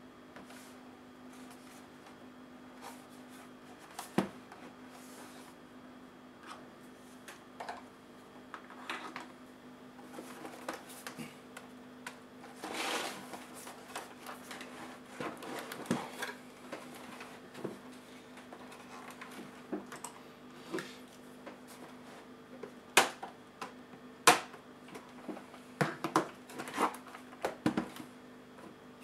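A Dell XPS L501X laptop handled on a workbench: scattered knocks, taps and rubbing as it is turned over and its lid opened, with two sharp clicks about a second apart and a cluster of clicks near the end, over a steady low hum.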